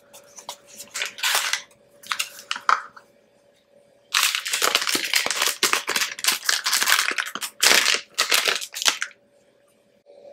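Crinkling and crackling of a metallized anti-static bag as it is handled and unwrapped, with a few shorter rustles first and a dense, continuous stretch from about four to nine seconds in.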